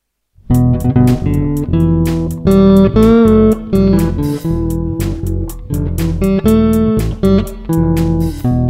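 Band music for the trailer cuts in suddenly about half a second in after silence, with drums and a strong bass line.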